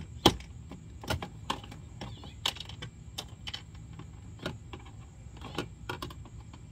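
Irregular clicks and knocks from hands working at the plastic body of a Power Wheels ride-on toy car during dismantling, the two loudest right at the start.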